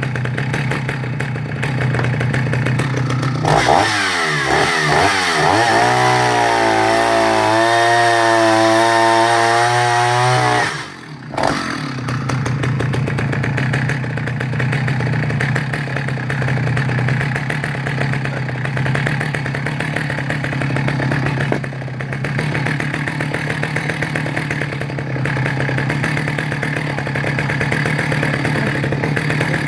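Vintage Husqvarna L65 single-cylinder two-stroke chainsaw running at idle, revved up about three and a half seconds in and held at high revs for about seven seconds, then dropping back to idle near eleven seconds in and idling steadily after that.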